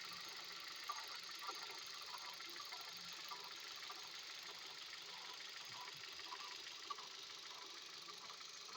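Hyundai Solaris engine idling with irregular light ticking over a steady high hiss. The uploader puts this knocking and grinding down to a worn engine water pump that needs replacing.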